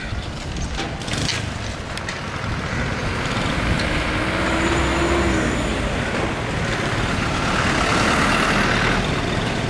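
Street traffic: motor vehicle engines running and passing, with a truck going by close, loudest near the end.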